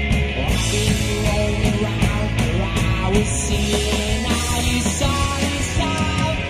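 Live rock band playing, with a male lead vocal singing over electric guitar and the band.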